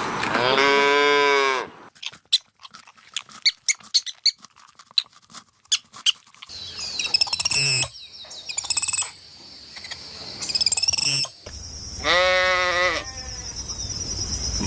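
Sheep bleating: two wavering bleats, one at the start and one near the end. Between them come a string of sharp clicks and a spell of high-pitched chirping calls.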